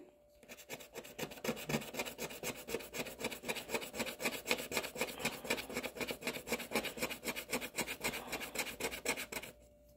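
Rapid back-and-forth scraping on a paper scratch-off card, the gold scratch-off coating being rubbed away in a fast, even run of strokes, several a second. It stops shortly before the end.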